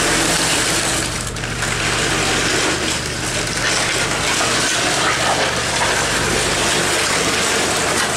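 An engine running steadily under a constant rushing noise, with a low, even hum.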